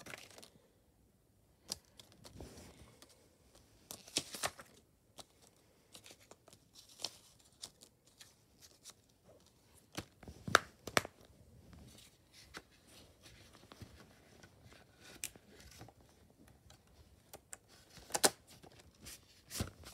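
Intermittent handling noise from a plastic Blu-ray case, its paper insert and cardboard slipcover: scattered clicks and taps with light paper rustling, the sharpest clicks about halfway through and near the end.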